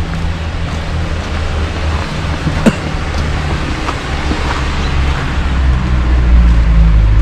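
Steady low rumble, growing louder near the end, with a single sharp click about two and a half seconds in.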